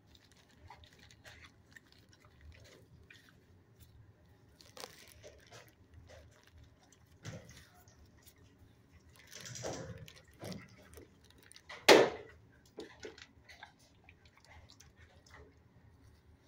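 A dog crunching small treats found on a kennel floor, among scattered soft clicks and a brief rustling noise, with one sharp knock about twelve seconds in, the loudest sound.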